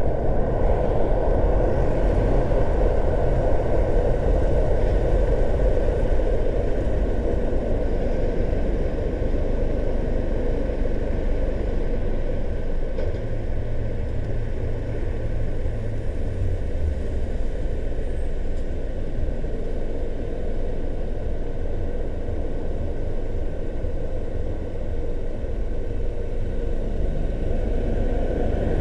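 Steady road noise of a car driving, a continuous low rumble with a broad hiss, somewhat quieter through the middle and rising again near the end.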